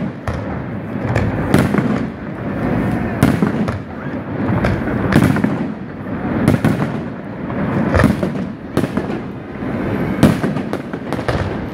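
Aerial firework shells bursting in rapid succession: sharp bangs about every half second to second over a continuous rumble of echoing reports.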